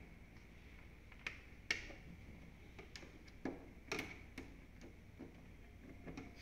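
Screwdriver backing screws out of an air cooler's plastic blower cover: faint, irregular clicks and ticks of the tool and screw against the plastic housing, a few bunched together about four seconds in.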